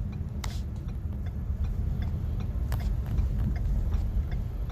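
Car cabin noise while driving: a steady low rumble of engine and tyres on the road, with a couple of faint clicks.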